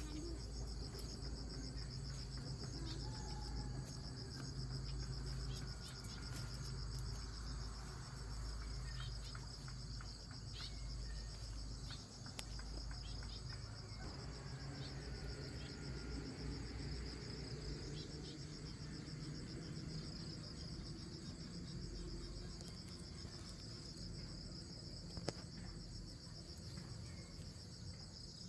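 Crickets trilling steadily as one continuous high, finely pulsing chorus, over a low background rumble with a few faint clicks.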